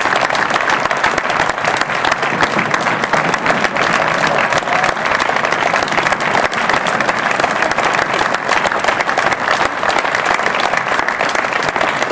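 Concert audience applauding steadily, a dense patter of many hands clapping.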